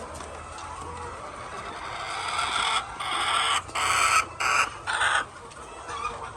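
A flock of chickens clucking steadily, with a run of five loud, harsh squawks about two to five seconds in.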